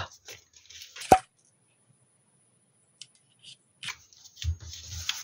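A single sharp knock as a plastic bottle of liquid glue is set down on the table about a second in. Near the end comes soft rustling and rubbing as hands press and smooth a glued cardstock panel flat, with a few dull thumps against the tabletop.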